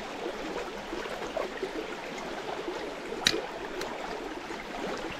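Small mountain brook babbling and trickling over stones, with two short sharp clicks a little past halfway.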